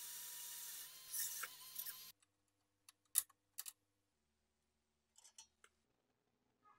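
Workshop tool sounds: a small motorised tool runs for about two seconds and stops suddenly, followed by a few sharp clicks and taps.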